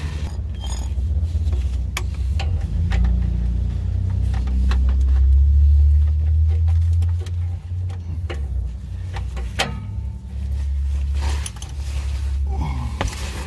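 Scattered metal clicks and clinks of a ratchet and breaker bar being fitted to an oxygen-sensor socket, working at a seized exhaust O2 sensor, over a loud steady low rumble.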